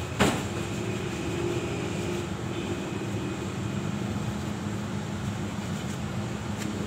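One sharp knock, likely metal on metal, about a quarter second in, over a steady low rumble of workshop background noise.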